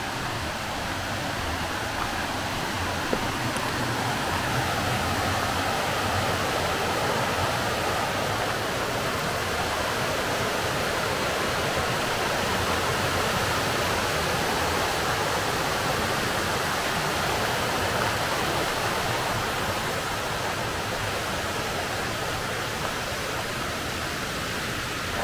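Steady rush of falling and flowing water from a waterfall and its brook, an even wash of noise that grows a little louder a few seconds in.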